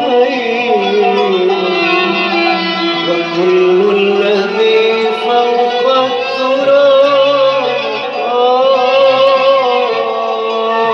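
Middle Eastern music: a melody of long, wavering held notes over a steady low line.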